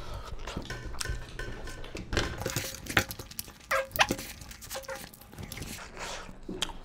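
Eating by hand from steel plates: fingers squishing and scooping curry and rice, small clicks and knocks on the metal, and chewing. A short squeaky sound about halfway through.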